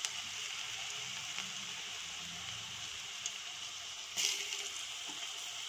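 Cauliflower manchurian balls deep-frying in hot oil in a kadai: steady sizzling, with a brief louder burst a little past four seconds in.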